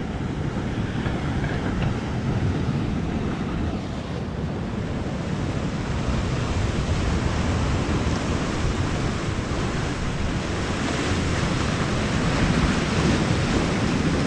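Sea surf washing over coastal rocks, mixed with wind buffeting the microphone, steady throughout.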